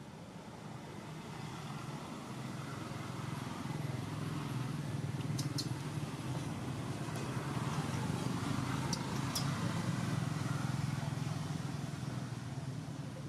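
A motor vehicle engine running, gradually growing louder and then easing off as it passes by at a distance. A few faint sharp clicks are heard around the middle.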